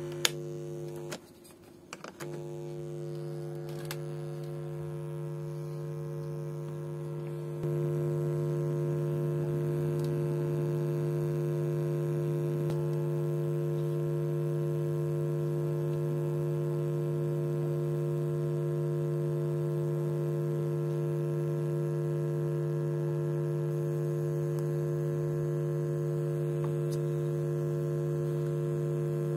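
Steady low hum with a stack of overtones from a 2.1 multimedia PC speaker set, with a few clicks and a brief dropout in the first two seconds. The hum steps up in loudness about eight seconds in and then holds steady.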